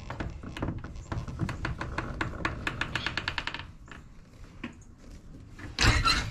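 Rapid mechanical clicking and rattling as a driver backs the Phillips screws out of the old storm door closer's bracket, with a short run of about twenty clicks a second. A single loud knock comes near the end.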